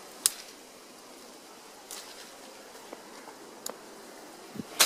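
Footsteps on dry fallen leaves and twigs: a few sharp snaps a second or two apart, the loudest near the end, over a steady faint hiss.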